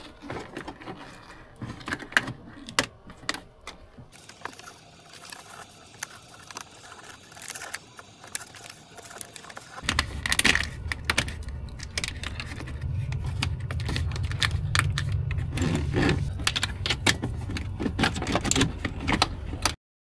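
Small clicks and rattles of plastic connectors and the wiring harness being handled and worked into a car door. From about halfway a steady low hum runs underneath.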